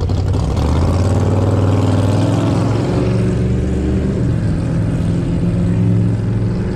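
A car engine accelerating, heard from inside a car's cabin: its note rises over the first few seconds, then settles into a steady run.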